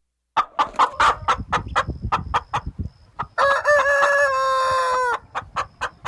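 Chicken clucking in quick short notes, about three or four a second, then a rooster crowing in one long held call of nearly two seconds that drops at its end, after which the clucking resumes.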